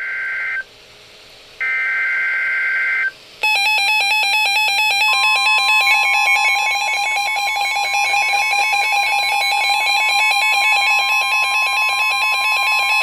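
Emergency Alert System SAME header: two short screeching digital data bursts about a second apart. About three and a half seconds in, the long steady EAS attention tone begins; it announces that a new alert follows.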